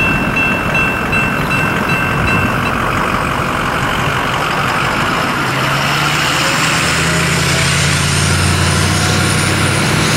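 Damaged NEG electronic crossing bell ringing in a steady repeating high tone, stopping about three seconds in as the crossing clears. A pickup truck towing a horse trailer then crosses the tracks and passes close by, its engine and tyres growing louder toward the end.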